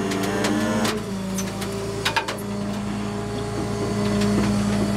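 Flatbed tow truck's engine and PTO-driven hydraulics running under load as the Jerr-Dan rollback bed tilts up and slides forward with a pickup on it, a steady mechanical hum. Sharp metallic clicks and clunks come about a second in and again about two seconds in.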